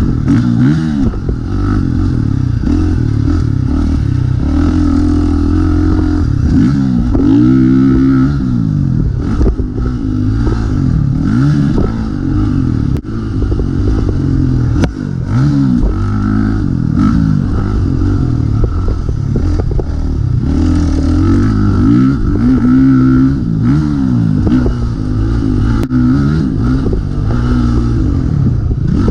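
Dirt bike engine being ridden hard, its pitch repeatedly rising and falling as the throttle is opened and closed through the gears.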